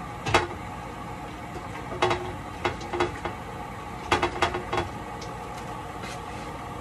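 Kitchen items being handled: a few sharp clicks and knocks, once just after the start, several around two to three seconds in and a quick cluster around four to five seconds, over a steady background hum.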